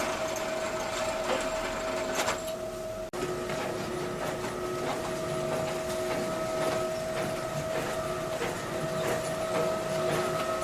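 QTJ4-25 semi-automatic concrete block machine running: a steady machine hum with continual clattering and knocking, cutting out for an instant about three seconds in.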